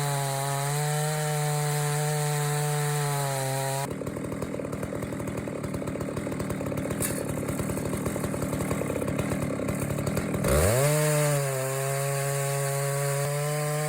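Chainsaw of an Alaska chainsaw mill ripping an oak log, its engine running at a steady high pitch. About four seconds in the steady pitch gives way to a rough, grating noise for about six seconds, then the engine revs up from low and settles back into the steady high pitch.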